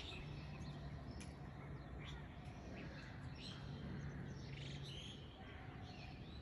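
Small birds chirping faintly, short high chirps scattered throughout, over a faint steady low hum.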